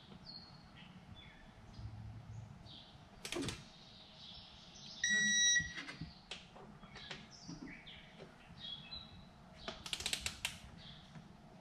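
Electronic torque wrench giving a single beep of about half a second, the signal that the timing chain tensioner bolt has reached the set 89 inch-pounds. Scattered light ratchet clicks come before it, with a quick run of them near the end.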